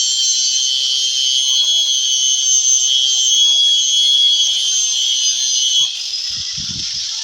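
Electric grinder (lixadeira) cutting through the wooden subwoofer box, a steady high-pitched whine. It eases and drops in level a little before six seconds in, with a few low knocks.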